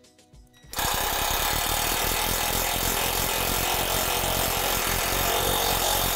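Ridgid 12V cordless impact driver driving a screw through the overlapping steel tubes of a basketball pole, a steady rapid hammering that starts a little under a second in.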